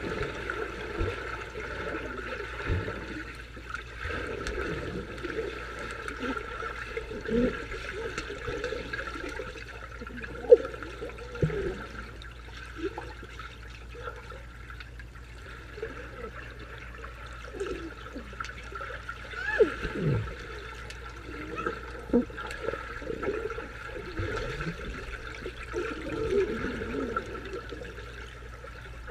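Water heard from below the surface by a submerged camera: muffled, irregular sloshing and bubbling from swimmers moving overhead. A sharp knock about ten seconds in is the loudest sound, and louder surges come near seven and twenty seconds.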